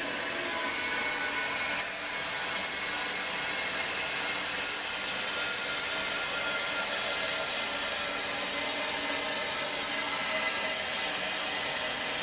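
Fluidmaster 400A fill valve in a toilet tank hissing steadily as the tank refills after a flush, with faint whistling tones in the rush of water.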